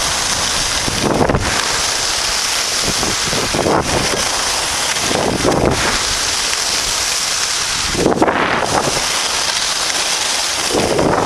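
Heavy wind rushing over the microphone of a camera carried by a moving skier, with the scrape of skis on packed snow swelling on each turn, about every two seconds.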